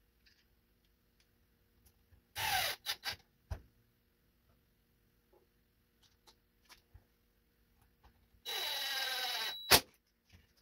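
Workbench handling sounds during a cordless chainsaw repair: a short scraping burst about two and a half seconds in, scattered light clicks, then a steady scraping noise for about a second near the end that ends in one loud sharp click.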